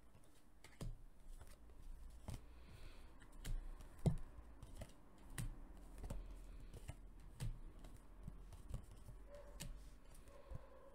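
Playing-card-sized oracle cards being dealt one at a time onto a table: a string of light taps and slides of card stock, with a sharper slap about four seconds in.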